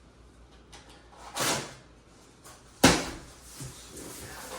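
Cardboard box and packing being handled during an unboxing: a short scraping rustle, then a sharp thud a little under three seconds in, with a few faint clicks.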